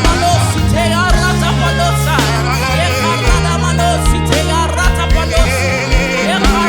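Live gospel worship band playing under a prayer time: sustained bass notes with drum hits and a wavering melodic line on top.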